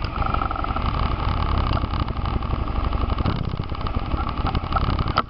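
Quad (ATV) engines running at idle and low speed, a steady low rumble.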